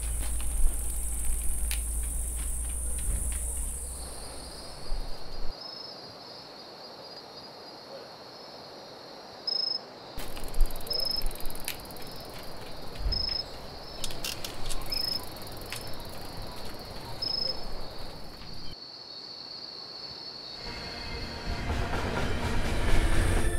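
Night-time crickets: a steady high trill with brighter chirps every second or two, and a few faint clicks. Music swells in near the end.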